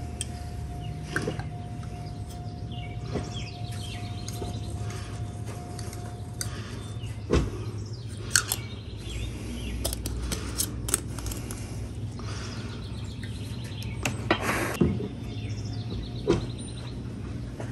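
Scattered light clicks and knocks from handling small metal screw-cap cans of PVC primer and cement and a PVC pipe while the primer and cement are daubed on, over a steady low hum, with birds chirping in the background.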